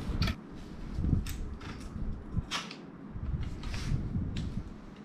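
Light metal clicks and knocks with some sliding and rustling, as a mountain bike's headset top cap and stem are worked off the fork's steerer tube. The clicks come irregularly, about half a dozen of them.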